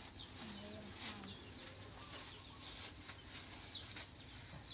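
Faint chicken clucks and a few short high bird chirps.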